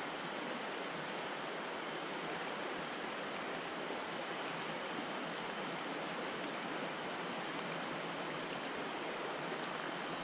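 Steady rush of flowing river water, an even hiss that holds level without breaks.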